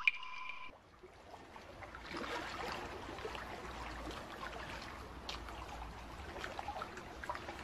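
Water trickling and dripping, with many small drip ticks over a running-water hiss; a short tone sounds at the very start.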